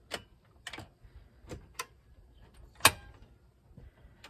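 A knife working a fish in a basin: irregular sharp clicks and scrapes, about two a second, with one louder knock near three seconds in.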